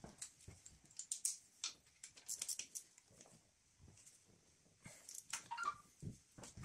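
Faint, irregular clicks and taps of a hand tool and metal fittings being worked on an engine, with a short squeak about five seconds in.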